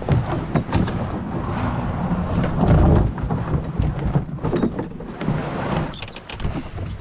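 Knocks and rustling as a canoe is handled and stepped into among brush, over a steady low rumble, with the loudest thump about three seconds in.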